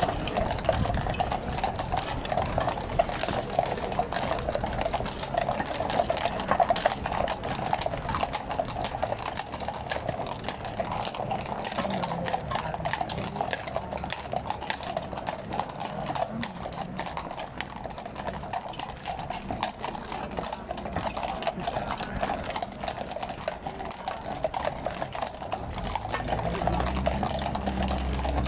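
Many shod horses walking on stone paving, their hoofbeats clip-clopping and overlapping in a dense, irregular patter. A low steady hum joins near the end.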